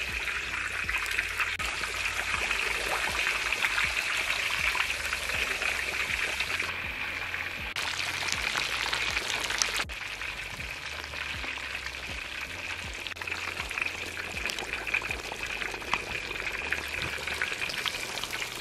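Whole tilapia deep-frying in hot oil in a wok: a steady, dense sizzle and crackle of bubbling oil, dropping a little in level about halfway through.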